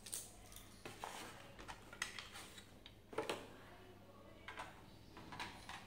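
Light handling noises: scattered clicks and plastic rustles as AAA cells are handled and a glass-topped digital bathroom scale is picked up and turned over, with the sharpest knock about three seconds in.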